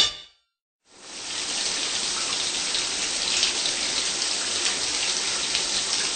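A shower running: a steady hiss of spraying water that fades in about a second in, after a brief silence.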